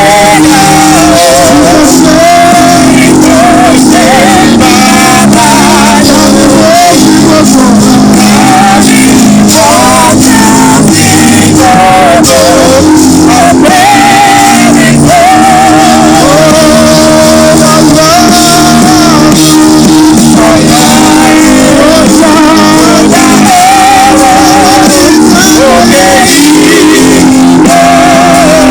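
Worship song: a lead voice singing with vibrato over a band, with sustained keyboard-like chords underneath.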